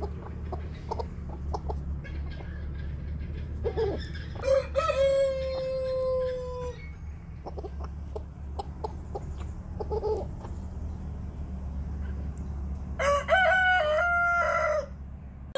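A rooster crows twice, about four seconds in and again near the end, each crow ending in a long held note. Hens cluck briefly in between, over a steady low rumble.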